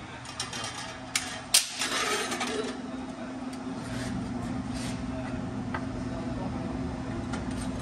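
Metal clanks and taps from an exhaust muffler and pipe being handled and fitted together, with one sharp clank about one and a half seconds in. A steady low hum runs underneath and grows a little stronger after about two seconds.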